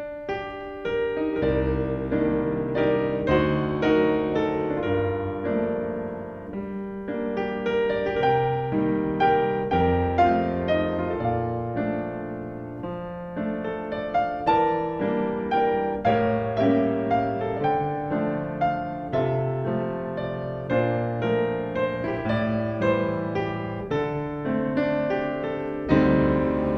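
Piano music: a melody of struck notes over chords, rising and falling in loudness with each phrase.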